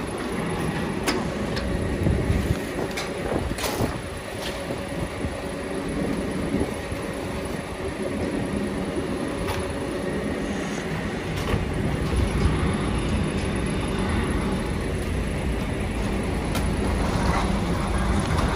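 Diesel coach engine idling with a steady low rumble, and a few short knocks and clicks as suitcases are loaded into its luggage hold.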